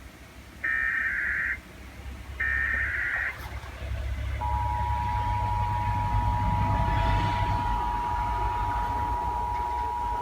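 Emergency Alert System SAME header: two bursts of warbling digital data tones about a second each, the last repeats of the three-times-sent header. About four seconds in, the EAS two-tone attention signal (853 and 960 Hz together) starts and holds steady, with a low rumble underneath.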